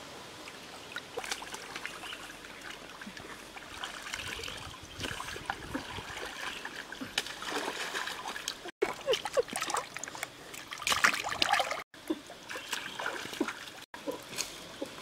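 Shallow stream water trickling and splashing as hands work in it while a fish is cleaned, with scattered small splashes and knocks. The sound cuts out for an instant three times.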